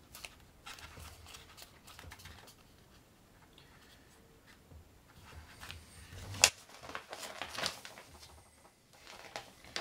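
Stiff card of a Foldscope paper microscope being folded and creased by hand: scattered rustling and crackling, with one sharp crack about six and a half seconds in and a cluster of crackles soon after.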